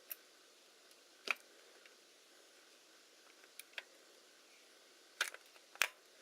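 Scattered sharp clicks and light taps, about six over a few seconds, from small tools and parts being handled.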